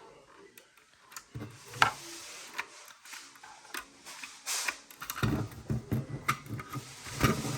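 Clicks and knocks from handling a manual fire alarm pull station while its reset key is worked to open it: scattered sharp clicks, then a busier run of knocks in the last couple of seconds.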